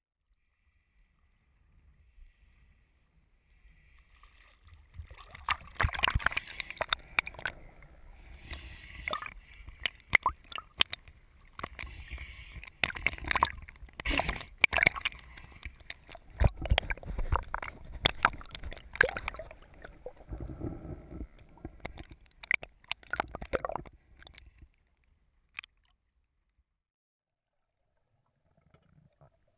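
Water sloshing and gurgling around a GoPro in its waterproof housing as it goes under the surface, with many irregular sharp knocks and clicks. The sound goes almost silent near the end.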